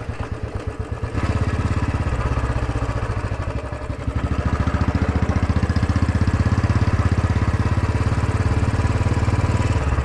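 Royal Enfield Bullet's single-cylinder engine running under way, with a quick, even beat of exhaust pulses. About a second in the engine note gets louder as the throttle opens, then it holds a steady cruising pull.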